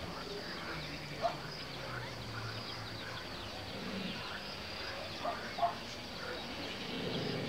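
Outdoor ambience: scattered short bird calls over a faint steady high insect chirring, with a low hum underneath.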